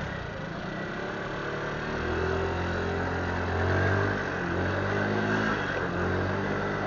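Motorcycle engine idling in slow traffic, then pulling away at low revs about two seconds in. Its steady note rises and falls slightly over a constant street-traffic noise.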